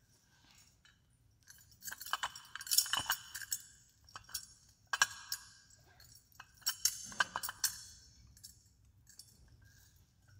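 Metal thurible clinking on its chains as it is swung to incense the Gospel book, in three bursts of rapid metallic clinks about two seconds apart.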